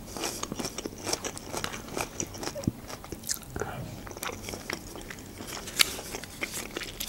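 Close-miked chewing and mouth sounds of a person eating soft chicken-and-mushroom julienne: many small, irregular wet smacks and clicks.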